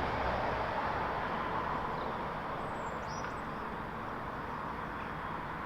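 Steady rushing noise of a car on the move, road and wind noise, fading very slightly.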